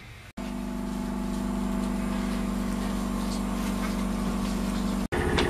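Blackpool Railcoach 680 tram heard from inside its saloon: a steady, level mechanical hum with a clear pitch, which cuts in suddenly just after the start and breaks off sharply near the end.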